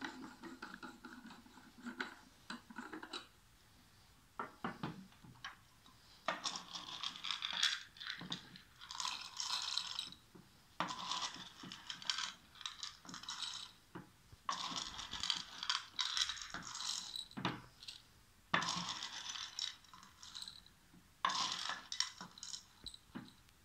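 Dry corn kernels poured by hand into the metal measuring cell of a Farmex MT-PRO grain moisture meter, rattling and clicking. They come in about six pours of a few seconds each, with scattered handling clicks in between.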